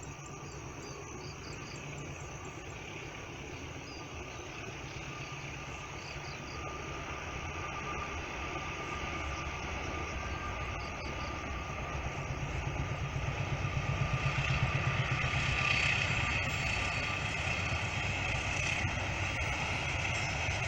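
Diesel locomotive engine rumbling as a train approaches, growing steadily louder to its loudest about fifteen seconds in, then easing slightly. Faint insect chirps are heard in the first half.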